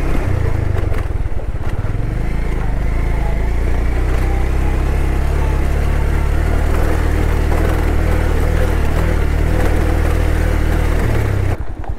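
Bajaj Pulsar motorcycle engine running steadily while riding, under a rushing noise; about eleven seconds in the engine note drops away.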